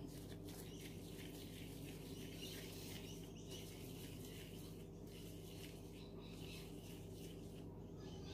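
Faint rustling of plastic food-prep gloves as hands roll raw beef mince into kofta balls, over a steady low hum.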